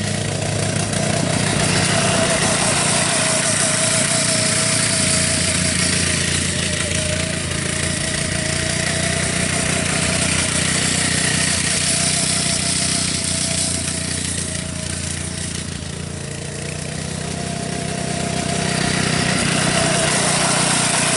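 Monster Moto MM-K80 go-kart's small four-stroke single-cylinder engine running steadily as the kart drives, with a wavering whine over it. It fades a little about three quarters of the way through and grows louder again as the kart comes close.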